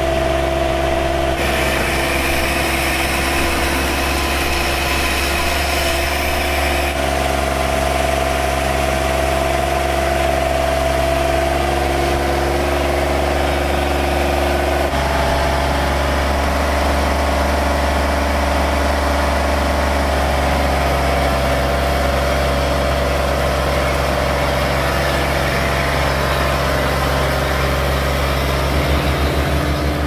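Iseki Frontier 323 rice combine harvester's diesel engine running steadily. Its note steps a little a few times.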